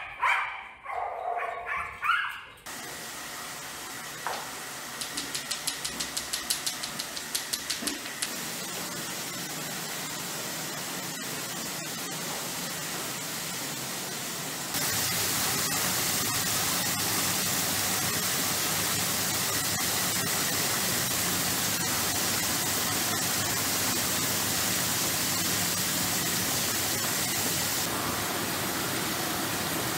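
A dog barks at the start. Then a steady hiss of water in a foaming dog-grooming bath, with a run of quick even clicks between about five and eight seconds in. The hiss gets louder about fifteen seconds in and holds level after that.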